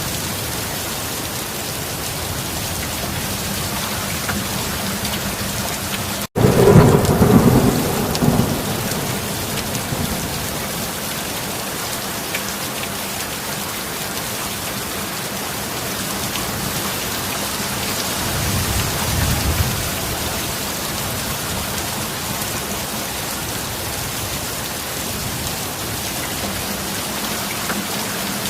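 Steady rain with a loud clap of thunder about six seconds in, just after a split-second dropout, rumbling away over two or three seconds. A softer roll of thunder comes about two-thirds of the way through.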